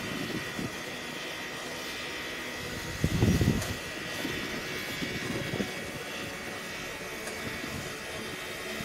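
Soviet L-class steam locomotive at rest or barely moving: a steady hiss and rumble with a faint, constant high whine. A brief, louder low rumble comes about three seconds in.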